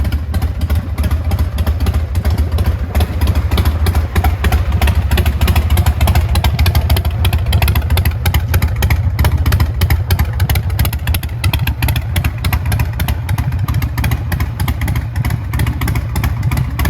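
Harley-Davidson Sportster XL1200R's fuel-injected 1200 cc air-cooled V-twin running steadily through an aftermarket Vance & Hines exhaust, a deep pulsing note.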